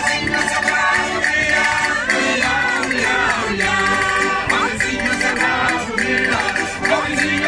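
Live Portuguese folk music: an accordion, a cavaquinho and small hand percussion playing together, with voices singing.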